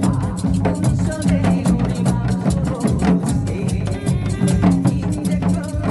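Janggu, the Korean hourglass drum, struck in quick, dense rhythms over backing music that holds steady low bass notes.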